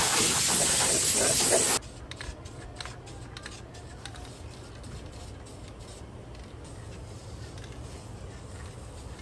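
Aerosol can of Duplicolor flat black spray paint hissing in one steady spray that cuts off sharply about two seconds in, followed by a few faint clicks.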